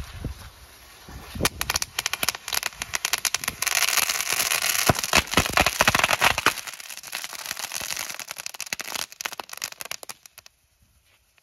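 A heap of small fireworks going off together: a dense, rapid crackling of many small pops that builds over the first few seconds, is thickest around the middle, then thins out and dies away near the end.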